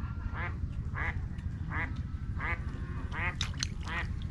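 A duck quacking over and over, a short call about every three-quarters of a second, with a few sharp splashes in the water near the end as a fish is pulled in on a bamboo rod.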